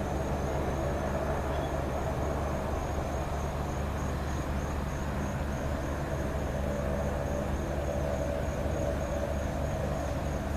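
ILG wall-mounted box fan running steadily: a rush of air over a constant low electric motor hum.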